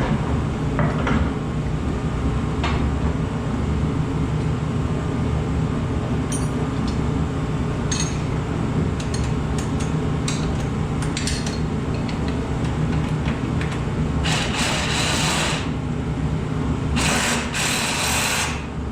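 Hand tools working on an ATV's tie-rod fittings: scattered metal clicks and clinks, then two short rasping bursts about two-thirds of the way through, over a steady low hum.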